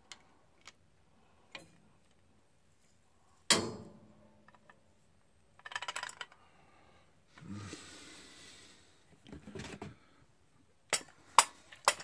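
Metal hand tools being handled: a socket wrench working on a quarter-inch bolt set in a concrete block wall, with one loud sharp metallic clack and a short ring a few seconds in, some rattling, and several sharp clinks near the end.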